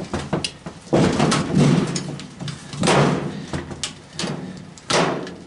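Washing machine parts clattering and banging as hoses are tugged and pried loose: a few sharp clicks, then three loud rattling bursts, about a second in, near three seconds and near five.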